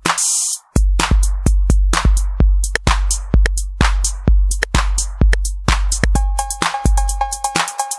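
Roland TR-8S drum machine playing a factory preset pattern: a steady kick drum about twice a second with hi-hats and snare. It drops out briefly at the start under a hissing cymbal swell, with the kick back in under a second. A repeated pitched percussion tone joins about six seconds in.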